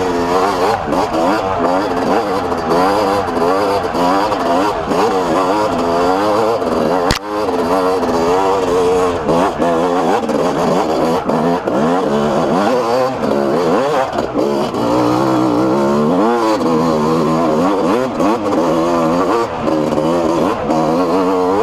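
Yamaha YZ250 two-stroke engine being ridden hard, its pitch rising and falling constantly as the throttle is worked and gears change. A single sharp knock about seven seconds in.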